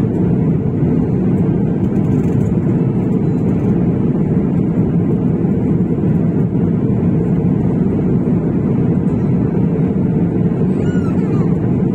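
Steady cabin noise inside an Airbus A350-1000 in its climb: a constant low rumble of the jet engines and airflow, unchanging in level.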